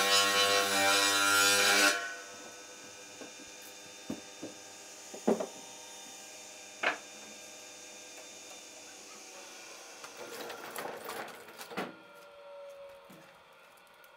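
A trim saw (crosscut saw) slicing through a timber plank for about two seconds, loud and dense with a steady pitched whine. Afterwards the saw runs on more quietly, with a few sharp wooden knocks and a short clatter as the cut pieces are handled.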